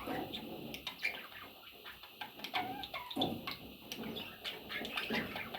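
Budgerigars chattering, with a scatter of short chirps and clicks.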